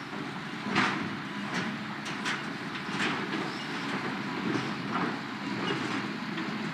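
Tracked hydraulic excavator engine running under load while its bucket presses into a steel shipping container, with repeated metallic clanks and creaks from the corrugated steel buckling. The loudest clank comes about a second in.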